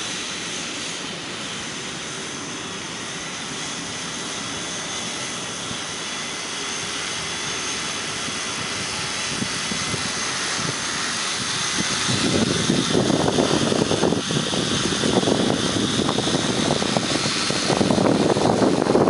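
Multirotor spraying drone's electric motors and propellers whirring in flight, a steady high whine. About twelve seconds in, a louder, rough rushing noise joins it.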